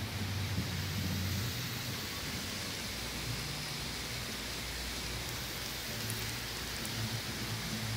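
Steady rushing and splashing of water from an outdoor fountain, with a low hum underneath.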